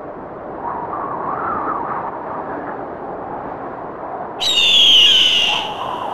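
Intro sound effects: a steady rushing wind with a faint wavering whistle. About four and a half seconds in comes a loud, shrill bird-of-prey screech lasting about a second.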